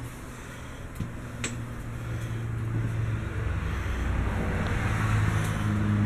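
A low engine hum that grows steadily louder over several seconds, with a couple of light clicks about a second in.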